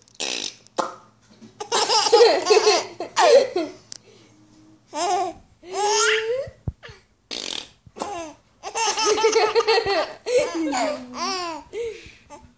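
Baby laughing in repeated bouts of giggles, each a second or two long, with short pauses between; the longest bout comes about two-thirds of the way through.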